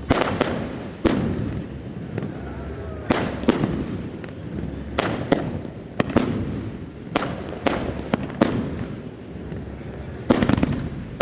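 Fireworks shells bursting overhead: a dozen or so sharp bangs, each with a short echo, coming irregularly about every second. A quick cluster of bangs comes near the end.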